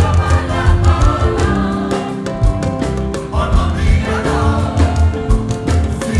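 Choir singing a Yoruba gospel hymn over a steady percussion beat.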